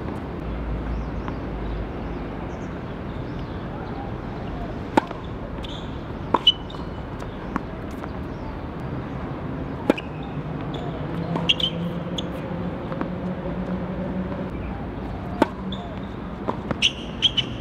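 Tennis ball struck by rackets and bouncing on the court: single sharp pops every one to few seconds, with a quicker cluster near the end.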